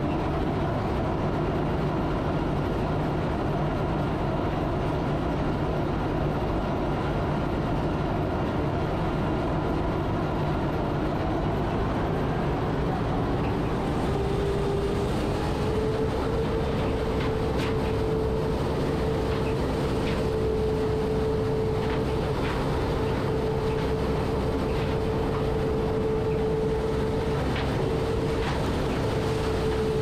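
New Holland CR9060 combine running while harvesting corn, heard from inside the cab: a steady mechanical drone. About halfway through, a higher whine comes in and holds, with light ticks over the second half.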